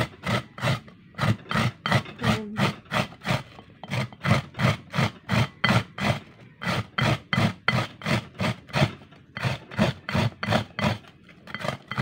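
Bitter gourd being grated by hand on the coarse side of a hardened-plastic grater: rhythmic rasping strokes, about three a second, with a couple of brief pauses.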